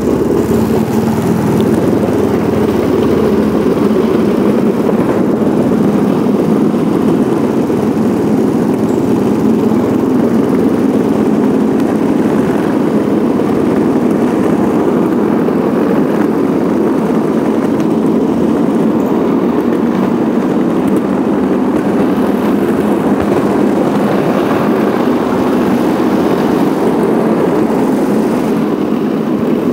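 Go-kart being driven steadily around an indoor track, running at an even level with no change in speed.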